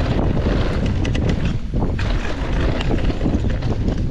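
Wind buffeting the camera microphone over the rumble of mountain-bike tyres rolling on a dirt trail, with a few rattles and clicks from the bike in the first second or so.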